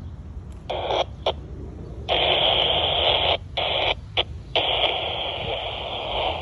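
Radio receiver hissing static with the squelch open and no voice coming through, cutting in and out abruptly. There are short bursts in the first two seconds, then nearly continuous hiss with a few brief drop-outs.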